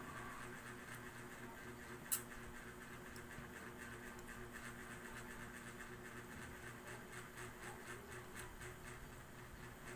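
Steady low hum in a quiet small room, with one sharp click about two seconds in.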